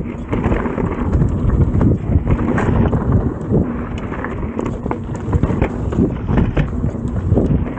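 Mountain bike riding down a rough trail: wind buffeting the microphone, with the tyres on the ground and the bike rattling in many short, sharp knocks over the bumps.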